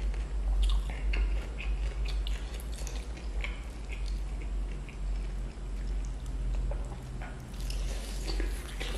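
Close-miked chewing of roasted chicken and fingers tearing its moist meat apart, small wet clicks and crackles coming in irregular clusters. A steady low hum runs underneath.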